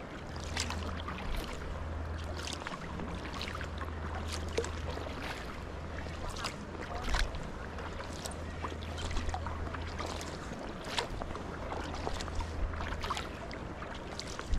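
Sea kayak paddling on calm sea water: small splashes and drips from the paddle blades about once a second, over a steady low wind rumble on the microphone.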